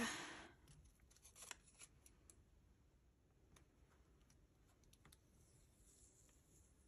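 Near silence with faint, scattered taps and rustles of fingers handling washi tape on planner paper.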